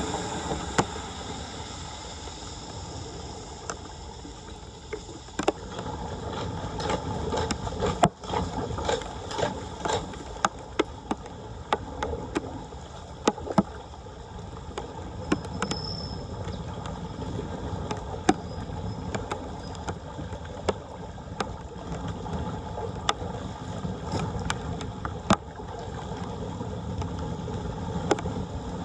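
Floodwater running and gurgling into a street drain, a steady wash, with many irregular sharp clicks and knocks on top, busiest in the first half.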